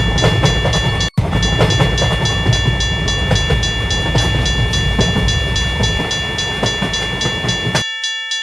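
Level-crossing warning bell ringing at a steady fast rhythm while a train passes. The train's loud running and wheel noise stops shortly before the end, with the bell still ringing.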